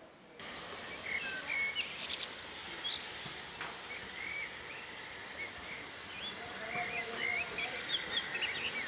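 Birds singing, with many short chirps and trills, over a steady outdoor background hiss.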